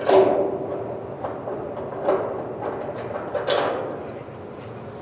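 Metal clank that rings on for about a second, followed by fainter knocks and scrapes of tools and parts being handled while hood hinges are fitted to an old pickup.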